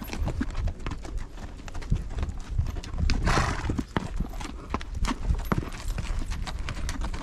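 Hooves of two horses walking on stony desert sand: an uneven clip-clop of soft hoof falls, with a short rushing, breathy noise about three seconds in.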